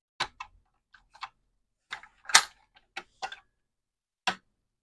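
Screwdriver and a loose case screw clicking against the plastic case of a TRS-80 Color Computer 2 as the stuck screw is worked free: irregular sharp clicks and taps, the loudest about two and a half seconds in.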